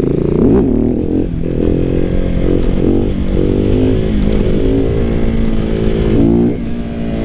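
KTM 690 SMC R supermoto's single-cylinder engine pulling hard through a wheelie. The engine note rises in the first second, then holds high with a few brief throttle dips.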